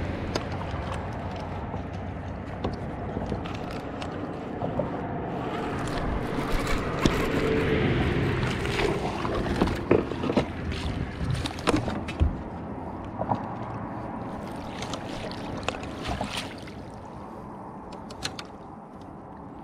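Steady wind and water noise on a small fishing boat, with scattered clicks and knocks of handling and gear. It grows louder toward the middle and drops noticeably a few seconds before the end.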